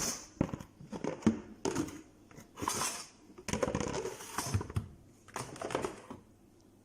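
Plastic plates being stacked and put away in a kitchen cupboard: a string of irregular clattering knocks and scrapes that stops about six seconds in.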